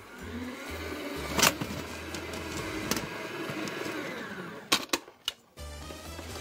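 Powdered sugar poured and shaken from a plastic tub into a stainless-steel stand-mixer bowl: a soft steady hiss with one sharp knock about a second and a half in, then a few quick knocks of the tub against the bowl near the end.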